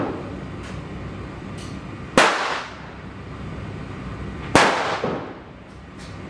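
Glock 34 9mm pistol firing slow aimed shots from a rest: two sharp bangs about two and a half seconds apart, each with a short ringing tail, and a fainter bang half a second after the second.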